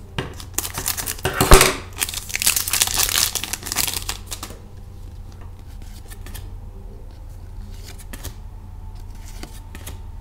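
A hockey trading-card pack being torn open, its wrapper tearing and crinkling for the first four seconds or so, with one sharp rip about a second and a half in. After that only a faint steady hum.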